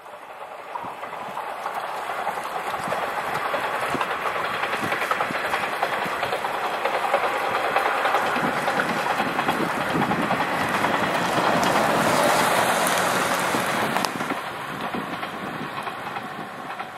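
Kanto Railway KiHa 2400 and KiHa 2300 diesel railcars coupled together, passing by. The engines and the wheels clicking over rail joints build over the first few seconds, are loudest about twelve seconds in, then fade.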